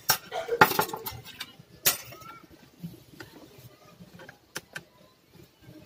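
Handling noise from an Asus A46C laptop's plastic case: a rustling clatter in the first second, one sharp click about two seconds in, then a few faint ticks as a screwdriver works at the hinge.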